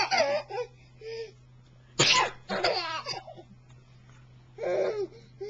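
A man's fake sneeze, a sudden loud burst about two seconds in, with a baby answering in short bursts of giggling laughter around it and again near the end.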